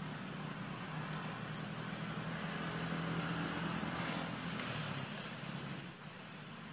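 Steady outdoor background noise: a hiss with a low steady hum beneath it, swelling through the middle and dropping suddenly near the end.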